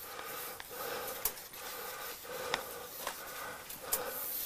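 Chalk writing on a blackboard: a run of short scratchy strokes, broken by a few sharp taps of the chalk on the board.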